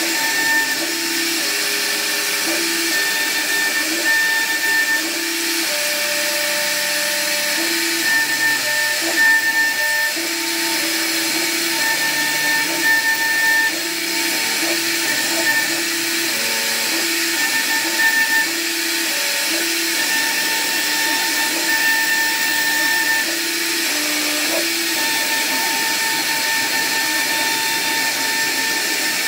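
CNC wood router carving: a steady high hiss of the spindle cutting wood, with short steady tones that change pitch and start and stop every second or so as the machine moves.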